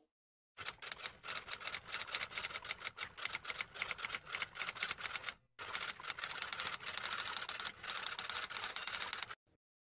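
Rapid run of sharp clicks, several a second and typing-like, in two stretches broken by a brief pause about five and a half seconds in.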